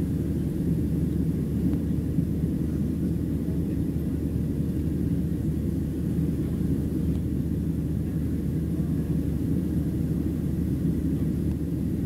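Boeing 737-700 cabin noise heard from a window seat over the wing in flight: a steady low drone of the CFM56-7B jet engines and rushing air.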